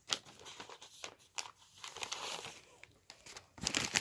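Rustling and crinkling handling noise with scattered sharp clicks, from a handheld phone being shifted about with its microphone rubbed. The noise is busiest just before the end.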